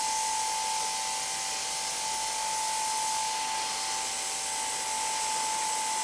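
Airbrush spraying paint in one continuous, steady hiss, with a steady high tone underneath.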